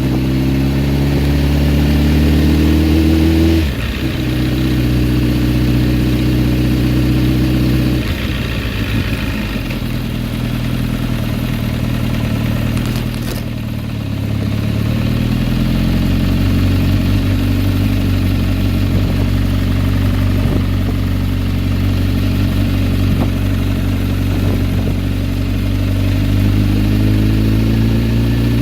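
2007 Kawasaki ZX-10R inline-four engine revving up and dropping back several times, the revs falling sharply about four seconds in and again around eight seconds. A ticking, rattling noise comes in as the revs drop off on deceleration; the owner has not been able to trace it after replacing the cam chain and cam chain tensioner and adjusting the valves.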